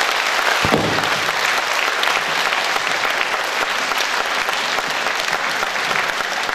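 Concert audience applauding steadily after a song, fading slightly near the end.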